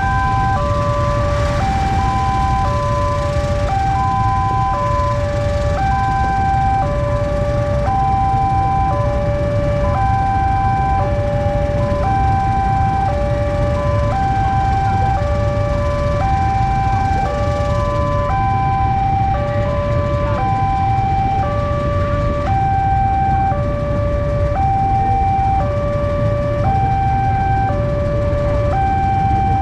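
Railway level-crossing alarm sounding from its loudspeaker: an electronic two-note tone alternating evenly, each note about a second long, warning that the crossing is closed for a train. Low engine rumble of waiting vehicles underneath.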